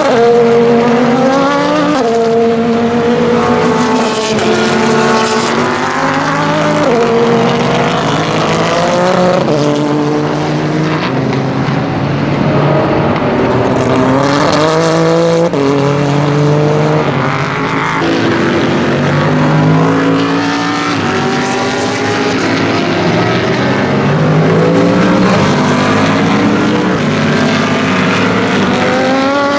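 IMSA prototype and GT race cars passing one after another at speed. Their engines climb in pitch and drop back at each gear change as they accelerate and brake, often several cars heard at once.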